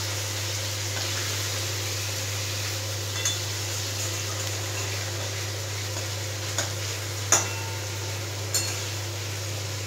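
Small fish frying in hot oil in a steel kadai, a steady sizzle, while a metal spatula turns them with a few sharp knocks against the pan. The loudest knock comes about seven seconds in.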